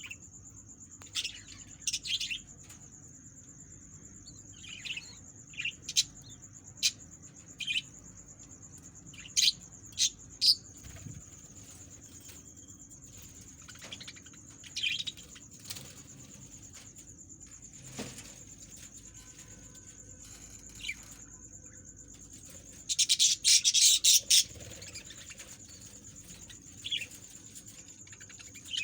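Baby parrot chicks chirping in short, scattered high-pitched calls, the feeding calls of chicks begging for food, with a rapid flurry of louder calls a few seconds before the end. A faint steady high-pitched whine runs underneath.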